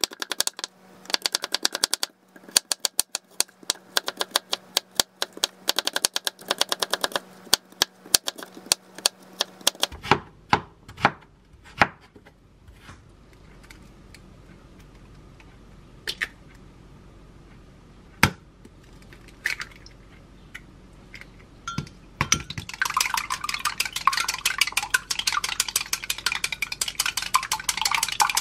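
A knife rapidly julienning carrots on a wooden cutting board, a fast run of chops in several bursts. After about ten seconds come a few knocks as an egg is cracked against a glass mug. Near the end a utensil beats the egg in the glass mug with a fast, steady clinking.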